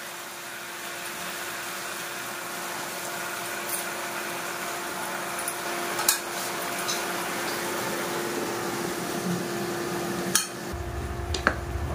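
Taro-leaf and badi curry cooking in a metal pot: a steady hiss with a faint steady tone under it, and a few sharp clinks of a utensil against the pot. A low rumble comes in near the end.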